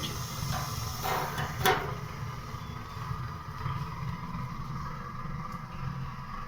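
Gas boiler humming: a steady, uneven low rumble with a faint steady whine above it. Two brief knocks in the first couple of seconds.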